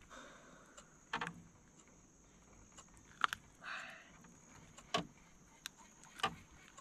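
A few faint, sharp clicks and light knocks, with a brief rustle just before four seconds in, from hands working a deeply swallowed topwater lure and its hooks out of a smallmouth bass's mouth.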